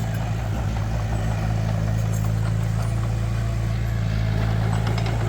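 Heavy construction machine's diesel engine running steadily, a constant low drone.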